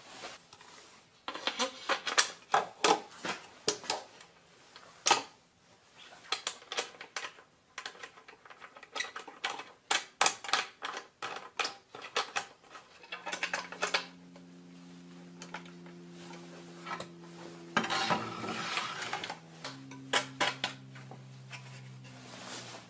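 Irregular clicks, knocks and clatter of parts being handled as the fence of a Bosch RA1181 router table is assembled: the fence knobs and a clear plastic bit guard being fitted onto the metal fence.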